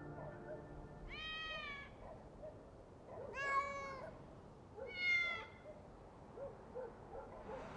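A cat meowing three times, short high-pitched meows about a second and a half apart.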